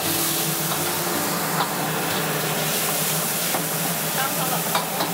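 Stir-frying in a wok over a high gas flame: food sizzling steadily, with a few sharp clicks of a metal utensil against the wok.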